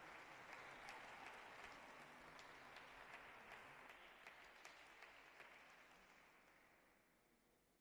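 Faint audience applause with scattered individual claps, dying away over several seconds.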